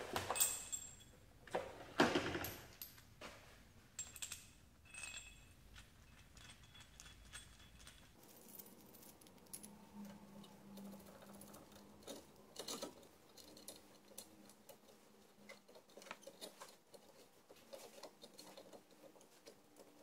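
Hand tools clinking and scraping against a brake caliper as its piston is screwed back into the bore. There are a few sharp metal clanks in the first few seconds, then a run of light ticks and scrapes.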